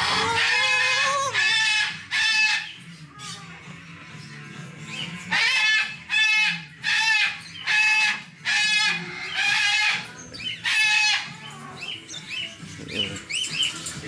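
Large parrot squawking loudly, about ten short, harsh calls with a lull in the middle, over faint background music.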